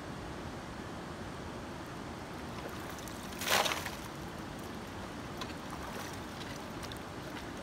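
Steady rush of a shallow river running over stones, with one short, loud splash about halfway through as a digging shovel comes up out of the water.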